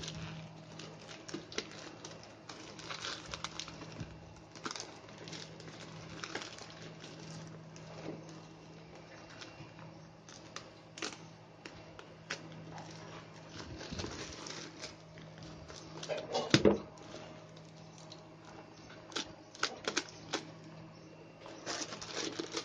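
Hands cutting open and unpacking a courier parcel: irregular rustling and crinkling of packaging, with scattered clicks and taps. A single louder knock comes about two-thirds of the way through, over a faint steady hum.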